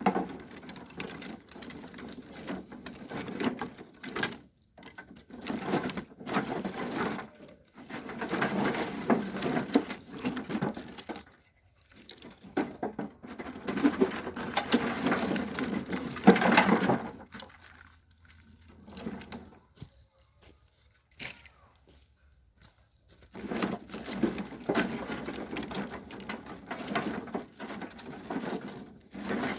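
Dry twigs and sticks being snapped and handled, a dense crackling and rustling in bursts of a few seconds with short pauses and a quieter stretch in the middle.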